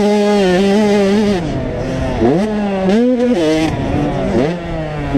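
Motocross dirt bike engine revving hard on the track. The pitch climbs sharply at the start and again about two seconds in, holds, and drops back between, as the throttle is opened and closed.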